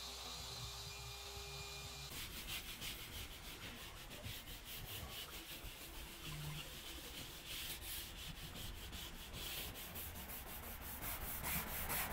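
Stiff natural-bristle detailing brush with a wooden back scrubbing a car's dashboard trim by hand in quick back-and-forth strokes, a dry scratchy rubbing that starts about two seconds in.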